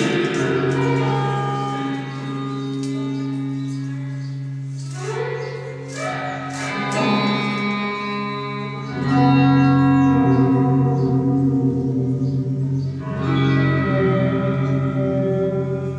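Solo electric guitar played with heavy reverb: long sustained notes and chords ring and overlap, with new notes struck several times, the loudest about nine seconds in.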